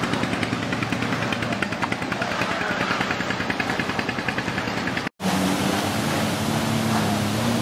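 Stand-up jet ski engine running at speed, with rushing spray and wind noise. About five seconds in the sound cuts out for a moment, then comes back as a steadier, closer engine hum.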